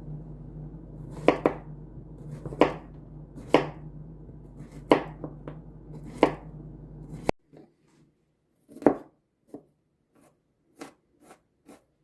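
Kitchen knife slicing vegetables on a cutting board, in single chops about a second apart. A low background hum cuts off suddenly partway through, and after that the chops come quicker and lighter.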